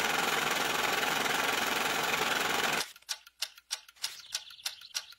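A steady, fast mechanical rattle stops abruptly about three seconds in, followed by sparse sharp clicks, roughly three a second.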